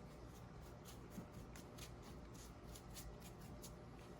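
Faint, irregular scratchy strokes of a paintbrush working paint over the prop's surface, a few strokes a second.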